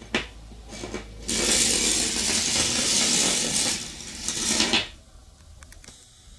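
Homemade battery-and-neodymium-magnet electric train running through a bare copper wire coil: a sharp click as it goes in, then a loud metallic rattling and scraping of the magnets along the coil turns for about three and a half seconds, ending in a few light clicks.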